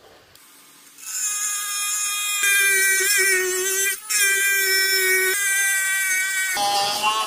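Handheld rotary tool with a small cut-off disc running at high speed and cutting into PVC sheet: a steady high-pitched whine starting about a second in, with a brief break midway and the pitch shifting a few times, dropping lower near the end.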